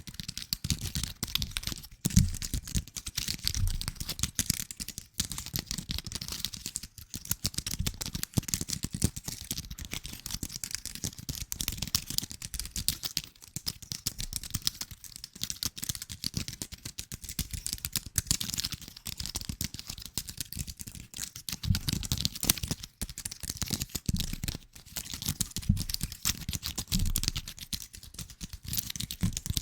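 Close-miked ASMR trigger sounds: dense, rapid small taps and crackly clicks, with a few soft low thumps.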